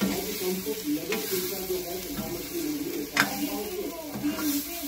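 Paneer and spiced gram-flour masala sizzling in a kadhai as a metal spatula stirs and scrapes it, with a few sharp clinks of the spatula against the pan, the loudest about three seconds in.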